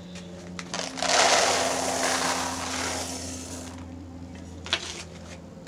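Dry feed pellets rattling and pouring in a container for about three seconds, starting about a second in. A single sharp click follows near the end.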